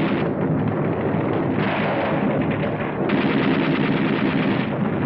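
Continuous rapid gunfire with machine-gun fire among it, on an old film soundtrack that sounds dull because its top end is cut off. It grows louder about three seconds in.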